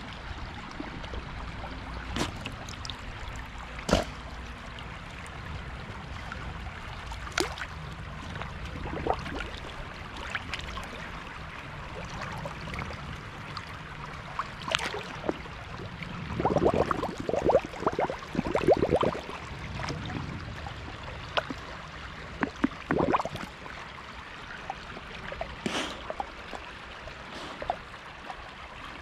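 Shallow stream running over stones, with a steady rush of water, heard from a camera at the waterline. Wading dogs slosh and splash close by, with a few sharp knocks and a louder run of splashing about halfway through.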